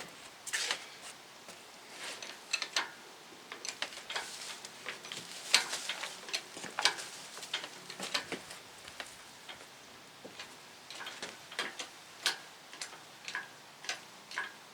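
Sharp clicks and knocks, irregular at first, settling into a steady tick about twice a second for the last few seconds.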